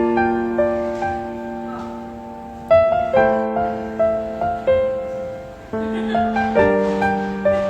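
Slow, tender piano music: single notes and held chords struck one after another, each ringing and fading.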